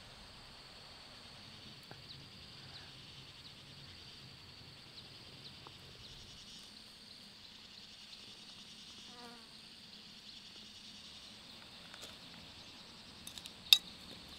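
Steady high-pitched insect chorus. A faint brief call comes about nine seconds in, and a single sharp click near the end.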